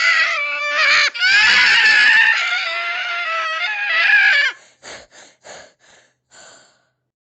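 A high-pitched voice screams in a long, wavering wail for about four and a half seconds, as a reaction to a bite of chocolate with pepper, then gives five short breathy puffs.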